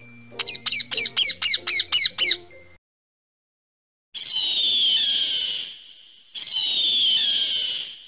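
A parrot squawking, a rapid run of about eight harsh calls at roughly four a second. After a short silence come two long, high eagle calls of about two seconds each, falling slightly in pitch.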